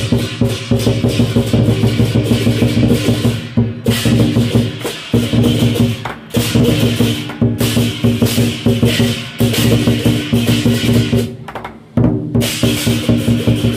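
Lion dance percussion: a drum beaten rapidly, with clashing hand cymbals ringing over it. It is loud and dense, with a couple of brief dips in the playing.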